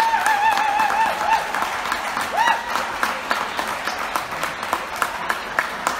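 Audience applauding with dense, steady clapping. A high wavering cry rises over the applause at the start, and a shorter one comes about two and a half seconds in.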